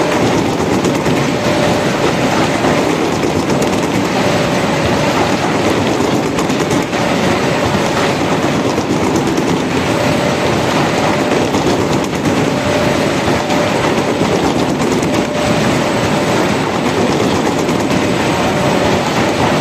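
Jumbo corrugated-carton printer slotter die cutter running in production: a steady, loud mechanical clatter with a faint steady whine, as die-cut cardboard sheets pass through the rotary die roll.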